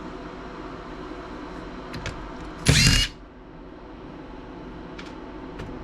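Electric screwdriver whirring in one short burst about halfway through, backing out a laptop case screw, with a few light clicks before and after over a steady background hum.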